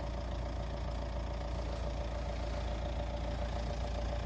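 Mercedes-Benz G-Class engine idling steadily with a constant whistle over the rumble, heard with its newly replaced muffler.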